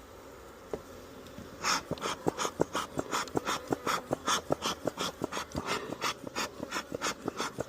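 Bee smoker bellows pumped in quick puffs, about three a second, each puff a short hiss of air with a click of the bellows, starting a little way in: smoke to calm the agitated bees.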